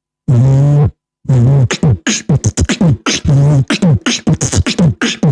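Beatboxer making vocal sound effects: a short held note, then a fast run of mouth clicks and short pitched sounds that slide down in pitch.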